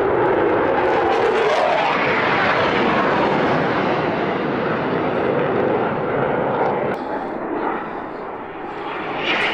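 Military fighter jet on a low practice pass overhead: a loud, steady jet roar that eases off about seven seconds in, then swells again near the end.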